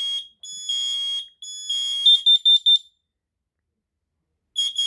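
Hardwired smoke alarms on a demonstration board sounding their fire alarm in the three-beep temporal pattern: three long, high beeps, the last one overlapped by a second alarm's quicker, slightly higher pulses, then a pause of about a second and a half before the beeping starts again near the end.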